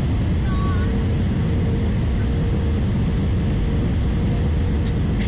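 Steady airliner cabin noise inside an Airbus A320-214, a dense low rumble of engines and airflow with a faint constant hum near 500 Hz.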